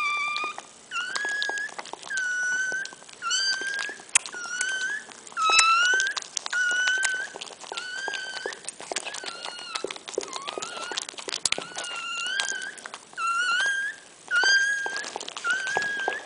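Newborn miniature pinscher puppy crying: a run of short, high-pitched cries, about one a second, each rising briefly and then holding its pitch, with small clicks between.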